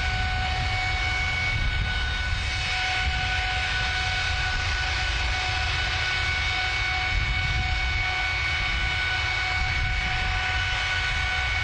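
GE90-115B high-bypass turbofan running steadily at a held high-power point during a triple-redline test. It makes a constant rumble and rush, with a steady whine of several high tones over it.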